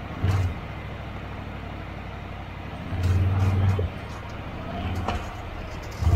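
2021 Can-Am Outlander XMR 650 ATV's V-twin engine running at low throttle, with short bursts of throttle about a third of a second in and around three seconds in. About five seconds in the revs rise briefly, and they pick up again at the very end.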